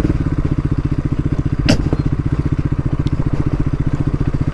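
Motorbike engine running steadily at low revs, with an even, rapid beat. One short click about one and a half seconds in.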